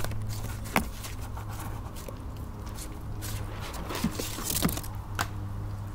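A dog eating chicken off a plate: chewing and licking, with a few sharp clicks.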